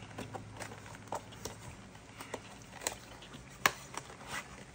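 Cardboard knife box being opened by hand: scattered light clicks, taps and scrapes as the tuck-in end flap is worked open, with one sharper click a little past halfway.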